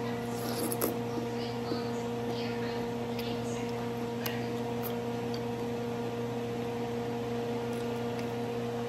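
Steady electrical hum, a low tone with several evenly spaced overtones. Faint chewing of a bite of pineapple and a few soft clicks come in the first few seconds.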